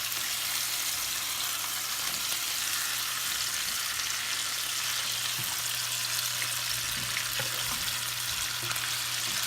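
Seasoned chicken breasts sizzling in butter in a Copper Chef nonstick pan just after being flipped, a steady frying hiss with a few faint ticks. A steady low hum runs underneath.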